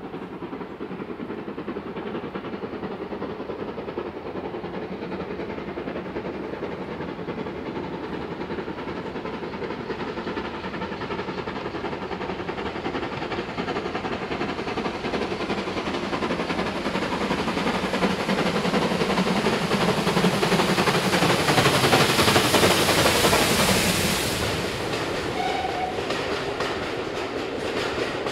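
Steam locomotive hauling a passenger train, approaching and growing steadily louder to a peak. The sound drops suddenly near the end as the engine passes under, leaving the carriage wheels clattering over the rails.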